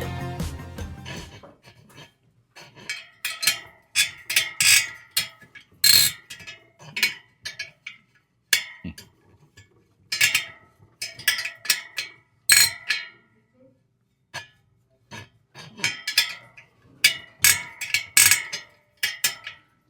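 Sharp metallic clicks and pings at irregular intervals, in small clusters: a spoke wrench turning spoke nipples and the spokes ticking as a bicycle wheel is tensioned and trued in a truing stand.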